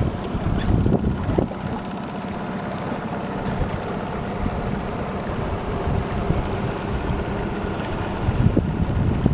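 Small boat's outboard motor running at a steady pitch, with wind buffeting the microphone about a second in and again near the end.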